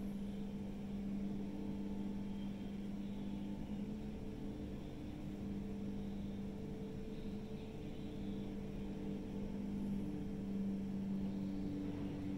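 Steady drone of heavy diesel machinery, an excavator and a truck at work, with a few fixed low tones that swell and ease slightly as the engine load changes.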